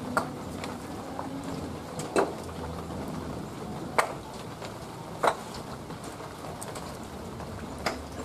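Steady rain hiss, broken by five short, sharp knocks a second or two apart.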